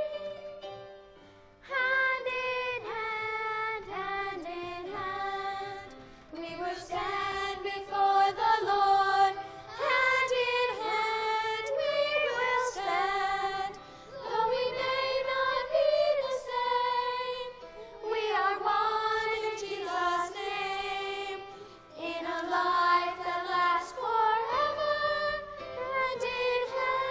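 A group of children singing a song together, in sung phrases of a few seconds with short breaks between them.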